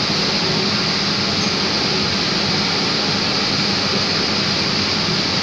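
Steady machinery noise of a running vapour absorption chiller plant: an even hiss over a low hum, unchanging throughout.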